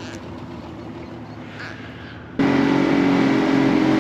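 Boat motor running steadily. About two-thirds of the way in there is an abrupt jump to a much louder, steady engine sound with a hiss over it.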